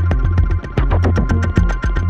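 Live electronic music: a dense, rapid ticking pattern over deep pulsing synthesizer bass, with a steady high tone held throughout.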